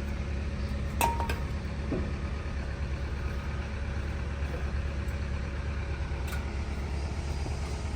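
A vehicle engine idling with a steady low drone, and a single sharp metallic clink about a second in.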